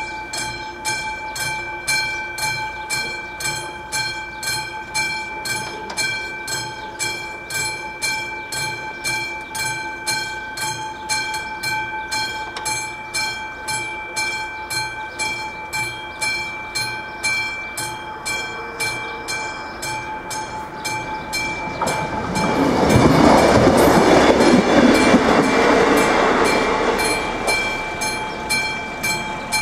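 Level crossing warning bell on AŽD 71 signals ringing in rapid, even strokes. From about three quarters of the way in, a passing train swells up loudly over the bell for several seconds and then fades.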